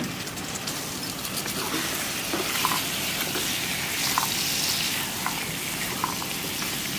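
Cubed potatoes, aubergine and peas sizzling in oil and spice masala in a kadai, turned over with a silicone spatula, with a few light scrapes from the stirring.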